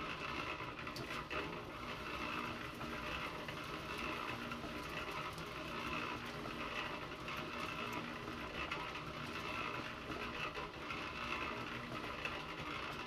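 Homemade compost trommel running: a 3.5 cubic foot electric cement mixer turning a steel-mesh drum, with a steady mechanical hum and the patter of compost sifting through the mesh into a steel wheelbarrow.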